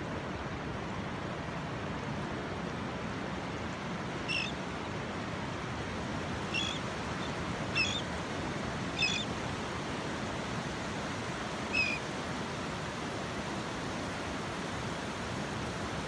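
Steady wash of ocean surf breaking on a flat beach, with a bird giving five short, high calls spread across the middle of the stretch.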